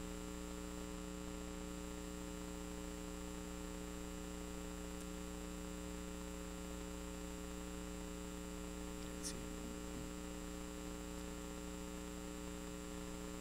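Steady electrical mains hum, several steady tones layered over a faint hiss, with one faint click about nine seconds in.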